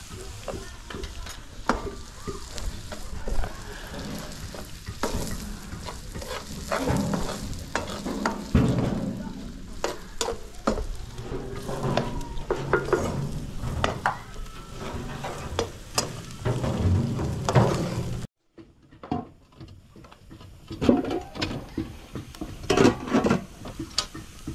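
Greens frying and sizzling in a pan over a wood fire while a spoon stirs them, knocking and scraping against the pan. The sound cuts off abruptly about three quarters of the way through and gives way to scattered knocks and crackles.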